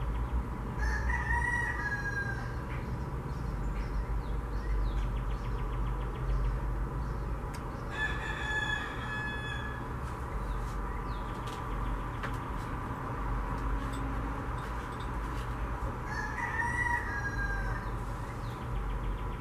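A rooster crowing three times, each crow about a second and a half long and roughly eight seconds apart, over a steady low background hum.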